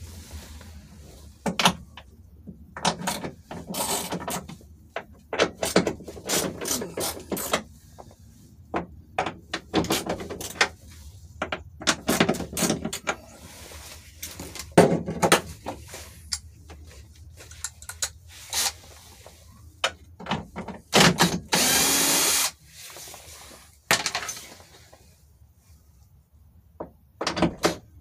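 Tool work on a car's sunroof assembly: a power driver running in short bursts, with one longer run a little after twenty seconds in, among clicks and knocks of metal parts and tools being handled.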